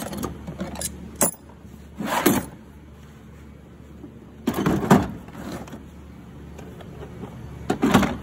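Tools and hard plastic tool cases being knocked and shifted in a toolbox drawer: a few sharp clicks, then three bouts of clattering handling noise.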